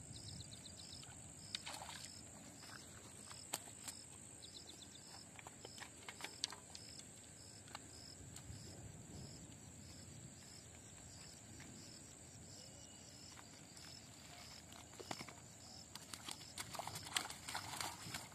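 Insects droning in a steady, high, continuous buzz, with a second insect chirping in an even pulse. Scattered clicks and rustles of handling sit over it, thickest near the end.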